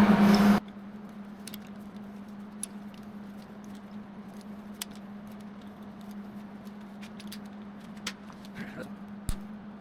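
Scattered light metallic clicks and clinks over a steady low hum.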